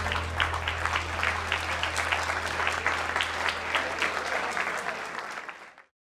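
Audience applauding in a room, many overlapping hand claps over a low steady hum, fading out to silence near the end.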